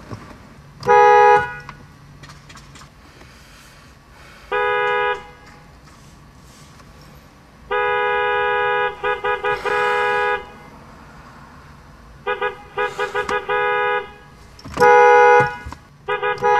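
Car horns honking repeatedly: a loud blast about a second in, a short one around five seconds, a long stretch of honking broken into quick toots from about eight to ten seconds, a run of short toots near thirteen seconds, then two more loud blasts near the end.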